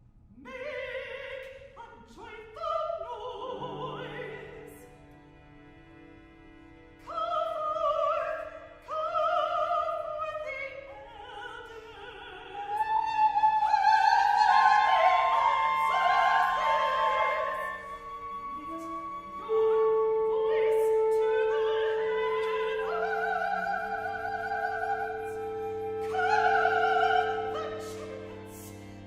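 A classical solo voice singing long held notes over a chamber ensemble of winds, brass, strings and piano playing sustained tones. The music starts softly and grows louder about halfway through.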